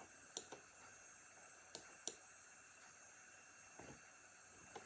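Near silence: room tone with a few faint clicks, two pairs in the first two seconds.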